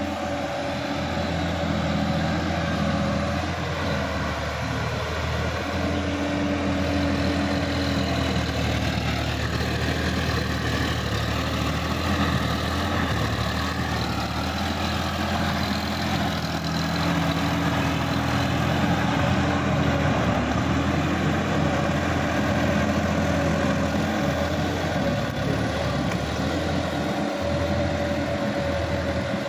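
Sonalika DI-50 tractor's diesel engine running steadily as it pulls a tilling implement through a flooded paddy field, its note wavering slightly in pitch.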